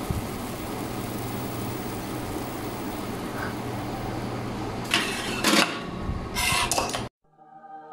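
Steady fizzing hiss of a blue carbonated cocktail foaming in a plastic cup, over a low hum. Two louder clattering bursts come near the end, then the sound cuts off suddenly and soft music begins.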